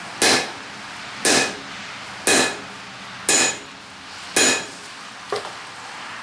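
Blacksmith's hammer striking hot steel on an anvil: five heavy blows about a second apart, each with a short metallic ring, then a lighter tap near the end, as the ball-peen hammer head is flattened and drawn out. A steady hiss runs underneath.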